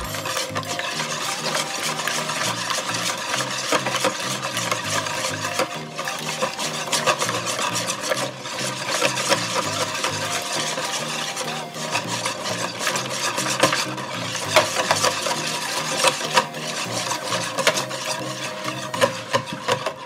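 Wire balloon whisk beating a thin egg and orange-juice mixture in a plastic bowl: a rapid, steady scraping and clicking of the wires against the bowl.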